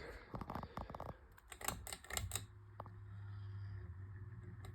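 A run of sharp clicks as the speed of a 52-inch Craftmade ceiling fan is switched, then from about two seconds in the steady low hum of its motor, growing slowly louder as it picks up from low to medium speed.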